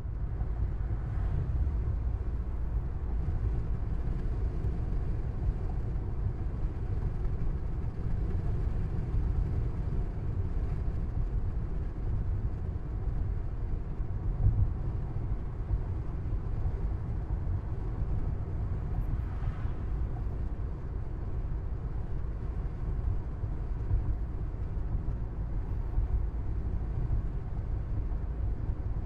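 A car driving at road speed, heard from inside the cabin: a steady low rumble of road and engine noise.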